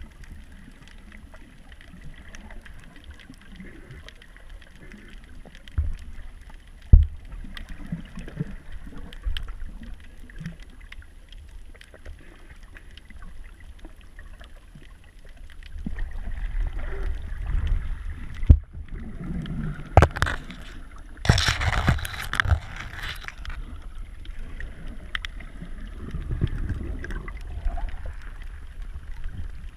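Muffled underwater noise picked up by a submerged camera: a low rumble of moving water with scattered sharp knocks. It grows louder a little past the middle, with a loud rushing burst about three-quarters through.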